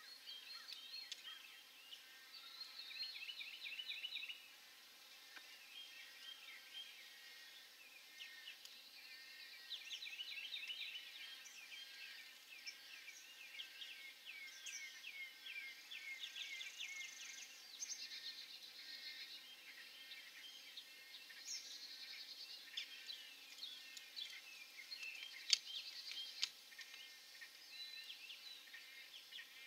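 A faint chorus of many birds calling at once: overlapping series of quick, high chirps that rise and fall in bouts, with a few sharp clicks near the end.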